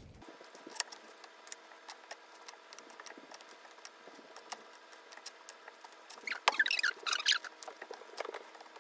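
Sticky bread dough being pinched off and set on a plastic kitchen scale with disposable-gloved hands: scattered soft clicks and taps, with a short run of squeaky, sticky squelches from the dough and glove about two-thirds of the way through.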